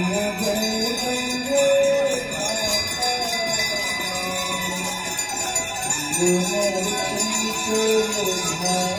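Temple bells ringing continuously over a voice singing an aarti hymn in long, gliding held notes.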